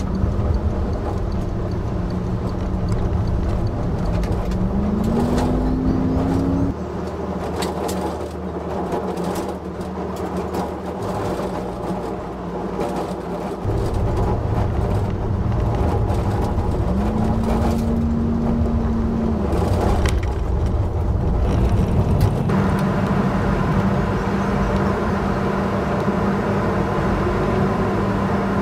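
A pickup truck being driven, heard as steady engine and road rumble. The engine tone rises twice as the truck picks up speed, with scattered knocks and rattles over the rough road. The sound changes abruptly a few times.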